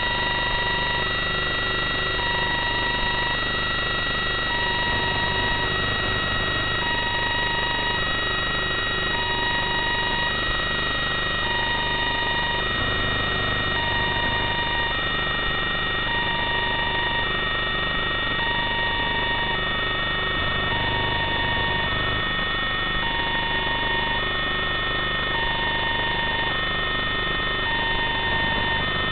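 Electronic two-tone beeping, alternating low and high, about one pair every two seconds, over a steady high whine and hiss.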